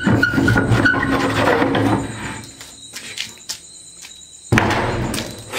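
A bolted wooden door being pushed with a foot: short high squeaks and knocks as it strains, a quieter stretch with a few clicks, then a sudden loud scraping noise about a second before the end.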